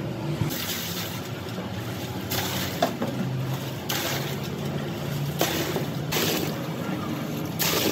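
Liquid plaster slurry sloshing in a plastic drum as it is worked by hand, about six short splashy swishes, over a steady low motor hum.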